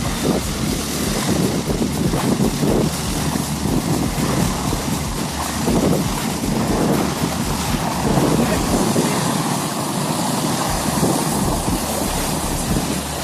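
Wind buffeting the microphone over a low vehicle rumble, a steady, gusty noise with no clear engine note.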